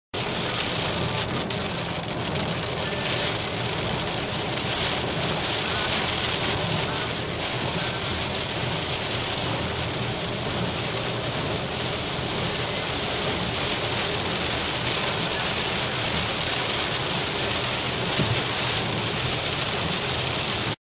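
Heavy rain hitting a moving car's windshield and roof, a dense steady hiss, mixed with the noise of tyres on the wet highway.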